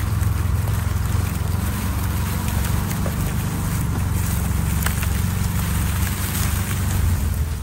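Off-road vehicle engine running steadily while driving, with a low rumble and wind buffeting the microphone.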